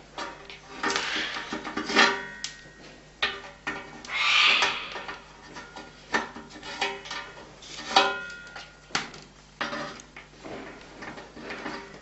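Irregular clattering and knocking of hard objects being handled, some strikes ringing briefly, as a parrot works objects or tools in a test apparatus.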